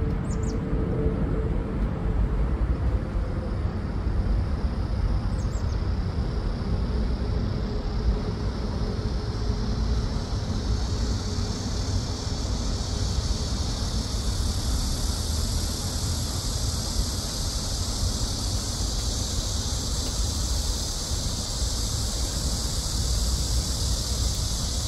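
Outdoor ambience: a steady low rumble under a high, even chorus of insects. The insects swell in about ten seconds in and keep going.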